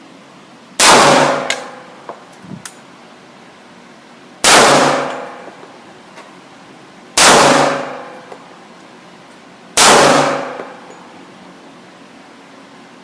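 Four gunshots, each a sharp crack followed by about a second of ringing, echoing decay, spaced roughly three seconds apart.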